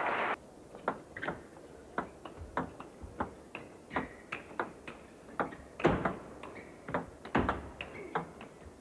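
Table tennis rally: the celluloid ball clicking off the table and the players' bats in quick alternation, about two to three hits a second, with two louder hits about six and seven and a half seconds in.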